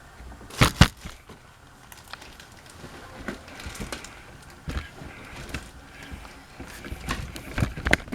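Ceiling fan blade being slid into its quick-connect slot on the motor: two sharp clicks close together less than a second in, then scattered lighter clicks and knocks of handling.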